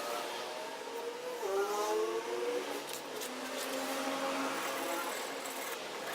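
Knife blade being stroked across the coarse side of a wet sharpening stone, a rasping scrape, under a louder pitched hum from an unseen motor that rises in pitch about two seconds in and then settles lower.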